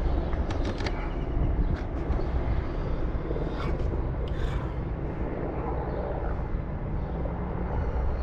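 Distant military aircraft of an air parade flypast, a steady low rumble, with a few light clicks about a second in.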